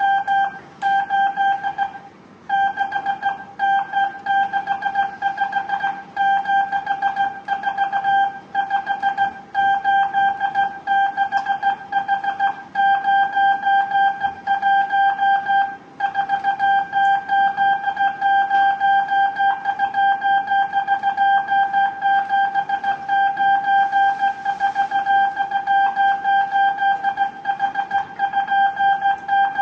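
Hand-keyed Morse code: a steady mid-pitched telegraph tone switched on and off into short and long beeps, sending numeric code groups. The keying breaks off briefly about two seconds in and again around sixteen seconds.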